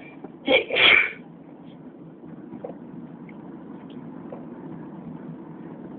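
A person sneezing loudly about half a second in, in two quick bursts, a short one and then a longer one. A steady low hum runs underneath.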